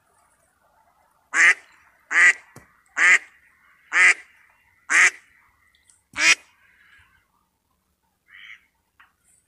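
Duck quacking: six loud quacks about a second apart, then quiet bits.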